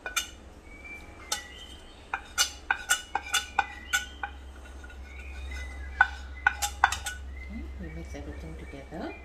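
Metal spoon clinking and scraping against a ceramic plate and bowl: a string of sharp taps, some with a brief ring, as spice powder is knocked off the spoon.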